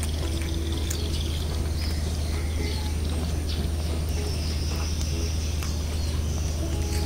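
A cat chewing dry biscuit pieces, with scattered sharp crunches over a steady low hum.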